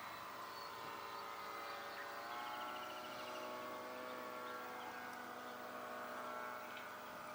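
Radio-controlled F3A aerobatic model plane flying, its motor and propeller a steady drone at a distance, rising a little in pitch about two seconds in.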